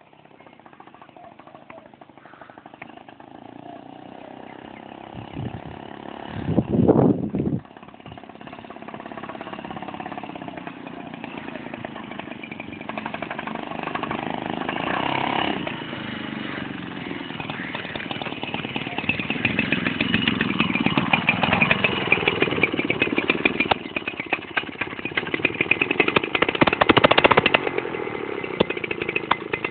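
125cc engine of a homemade lawn-mower bike running and revving, with pitch rising and falling. There is a loud surge about seven seconds in, and the sound grows louder over the second half.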